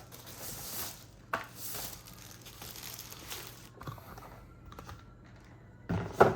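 Packaging crinkling and rustling as a keyboard is unwrapped from its box, with a few light clicks. Two heavier thumps come near the end.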